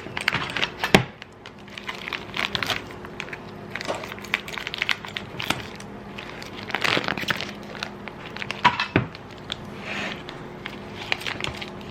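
Plastic crinkling and rustling in irregular bursts as whole raw chickens are handled in their packaging, with scattered clicks and a sharp knock about a second in, over a faint steady hum.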